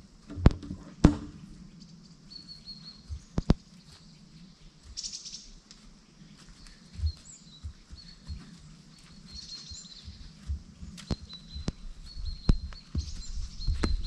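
Small birds chirping, with short high notes repeated every second or two over faint low background noise. A few sharp clicks cut in, the loudest about a second in.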